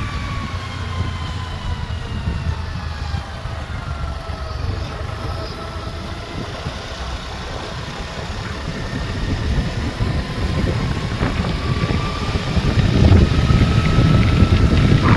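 Motorcycle engine running while the bike is ridden, with wind rumbling on the microphone. The engine note sinks slowly, then rises and gets louder about two thirds of the way in as the bike picks up speed.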